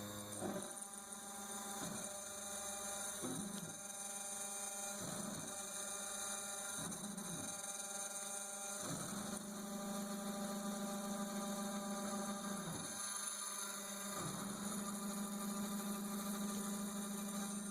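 Tatatronic TT1210 Rhino CNC router running, with a steady electric motor whine and hum. Every second or two the pitch briefly dips and climbs back.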